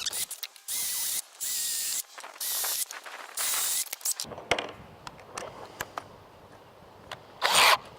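Power drill boring pilot holes into a wooden post, in four short bursts of about half a second each, then one more burst near the end.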